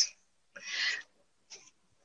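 A short breathy sound, a person's breath, lasting about half a second, followed by a tiny click near the end.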